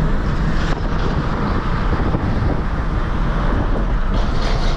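Steady road noise of a truck driving at highway speed, with wind noise.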